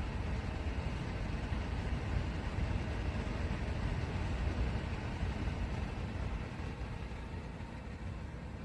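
Electric ceramic space heater's fan blowing with a steady rushing noise, easing off a little near the end.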